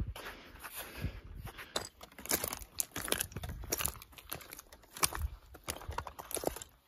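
Trail-running shoes crunching over loose scree and rock, with trekking-pole tips clicking against the stones: an irregular run of crunches and clicks.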